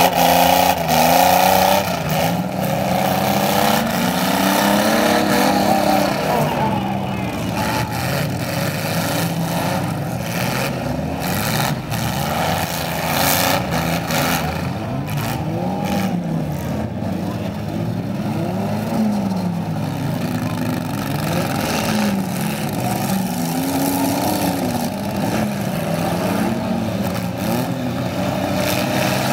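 Several compact cars' engines revving up and down at once in a demolition derby heat, with scattered bangs through the middle stretch.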